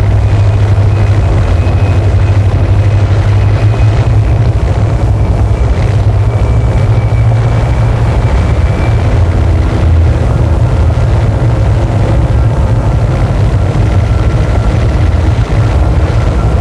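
Experimental noise-music recording: a loud, unchanging wall of dense distorted noise over a heavy low rumble, with faint thin high tones drifting in and out.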